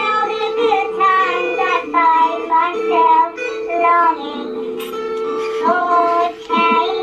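A high voice singing a melody in short phrases over backing music with a steady held note.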